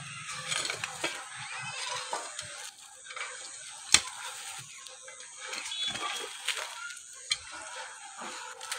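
A hoe striking and scraping dry, stony soil in repeated strokes, with the sharpest blow about four seconds in.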